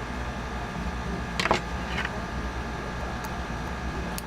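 Small clicks and a brief scrape of a Phillips screwdriver working a tiny case-back screw on a wristwatch, one sharper click about one and a half seconds in and a lighter one just after, over a steady background hum.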